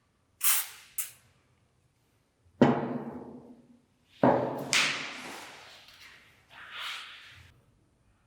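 A series of knocks and clangs on metal: two light clicks, then three heavy strikes that ring on and die away over a second or two, followed by a brief scrape. These are parts of the old hand-cranked grinder being knocked and handled.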